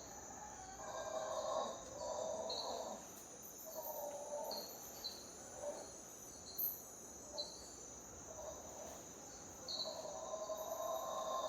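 Mantled howler monkeys calling in repeated bouts of howls, each about half a second to a second long, from a dawn chorus. Under them runs a steady high insect drone, with short bird chirps now and then.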